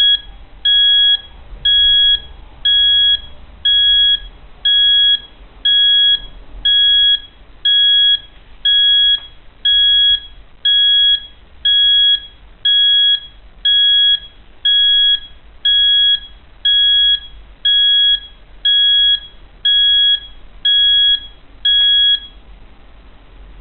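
Electronic alarm beeper of a homemade PIC-controlled nixie-tube alarm clock sounding, one high-pitched beep about every second. The beeping stops about 22 seconds in.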